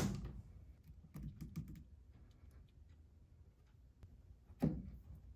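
Faint clicks and clinks of metal wire hose clamps being worked onto rubber hoses with pliers, with a sharper click near the end.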